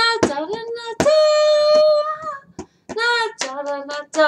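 A woman singing unaccompanied, short wordless vocal phrases with one long held note about a second in, in a small room. A few short sharp clicks fall between the notes.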